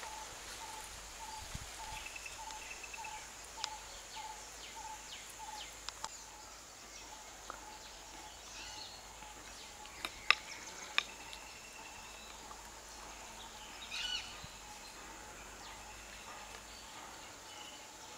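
Rural outdoor ambience of birds and insects. A short call repeats about twice a second through the first six seconds, other birds chirp now and then, and a steady high insect hum runs underneath. Two sharp clicks a little after ten seconds in are the loudest sounds.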